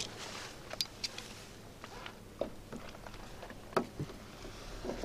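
Sparse light clicks and taps of hands fitting a wire into a solar charge controller's screw terminals, the sharpest about four seconds in.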